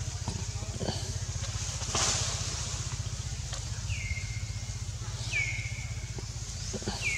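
A low, steady engine throb runs throughout. Three short, high whistled calls drop in pitch and then hold briefly, about four, five and a half, and seven seconds in.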